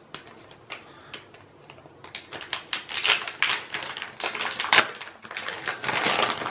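Plastic packaging of a soft plastic fishing bait crinkling and rustling as it is opened by hand. A few scattered clicks at first, then busier crackling from about two seconds in.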